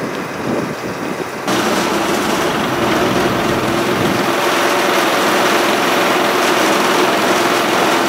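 Small gasoline engine of a Harbor Freight Central Machinery band sawmill running. About a second and a half in it jumps suddenly to a much louder, steady high-throttle run and holds there.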